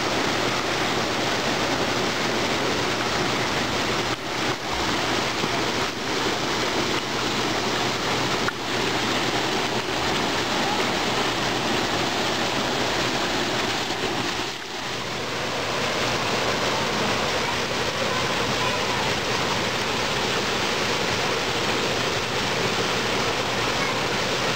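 Water pouring out of a waterslide's exit chute into the pool, a steady rushing splash that dips briefly about halfway through.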